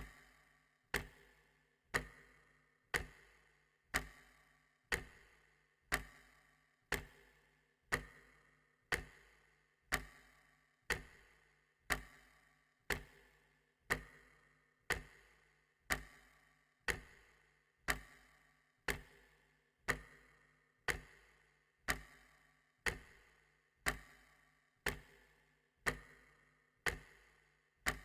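A clock ticking steadily, one sharp tick about every second, each tick with a short ringing tail.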